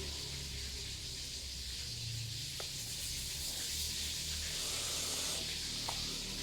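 Faint handling of a Voopoo Drag S vape mod: light rubbing with two small clicks, over a steady hiss and low hum.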